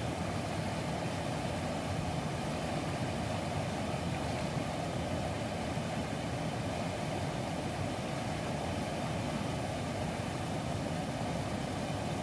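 Steady rushing of a rocky mountain stream running over shallow rapids.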